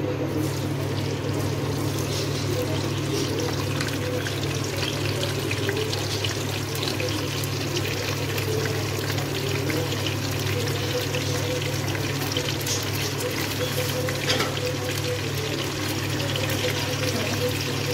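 Tomato wedges tipped into hot oil in a non-stick wok, sizzling steadily with a fine crackle. The sizzle starts as the tomatoes go in, over a steady low hum.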